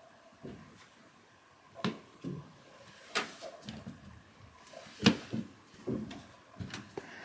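A scattered series of light knocks and soft thumps, the loudest about five seconds in, from someone moving about a small room around a wooden door frame.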